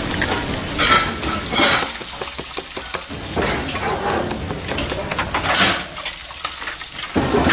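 Scattered clattering and rustling noises, several short sharp bursts.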